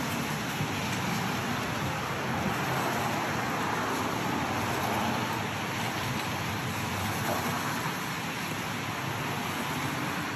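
Road traffic on a rain-wet street: steady hiss of tyres on the wet road with light rain, one vehicle swelling past around the middle.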